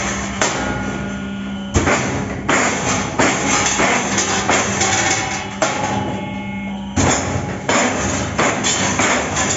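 Background music with drum hits and guitar, sharp percussive strikes about once a second with sustained notes between them.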